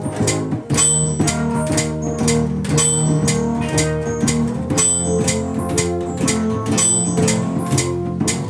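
Instrumental band music: guitar over bass guitar and a steady drum beat of about three hits a second, with no vocals.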